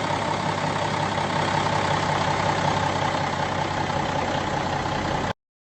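Steady loud hiss of static-like noise with a faint steady tone near 1 kHz running through it. It cuts off suddenly about five seconds in.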